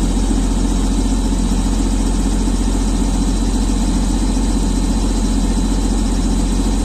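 Heavy diesel engine of earth-moving machinery running steadily at low speed, an even, unchanging drone.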